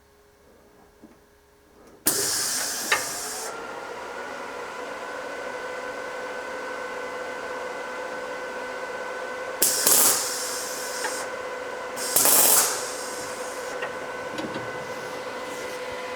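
A small electric power tool's motor switches on about two seconds in and runs steadily, with three short louder bursts of hissing.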